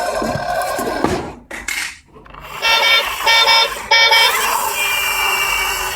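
Battery-operated toy vehicle's electronic sound effects: a whirring noise that dies away about two seconds in, then three short horn beeps, followed by steady electronic tones.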